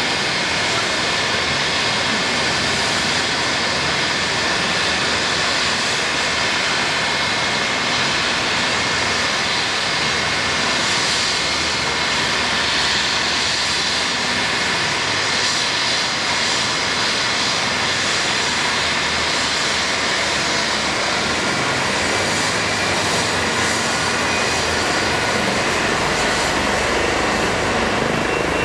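Twin turbine engines of a Eurocopter EC135-type rescue helicopter running during start-up on the pad: a steady turbine whine over a loud hiss, with rotor noise. Further whine tones come in about twenty seconds in as the engines spool up.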